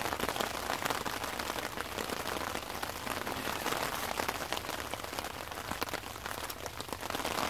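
Steady rain falling, with a dense ticking of individual drops.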